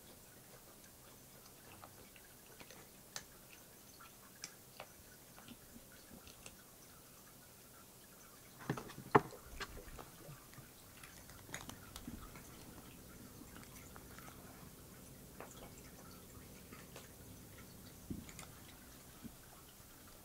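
Quiet room tone with scattered faint clicks and taps, and a brief cluster of louder knocks about nine seconds in.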